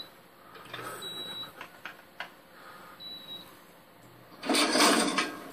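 Short high electronic beeps from a railway dispatch computer's alert, with scattered clicks, heard through a TV speaker. Near the end comes a loud rushing noise lasting under a second.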